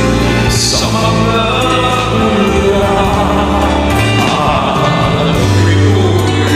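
Ballad karaoke backing track with held chords and a bass line, and a voice singing over it.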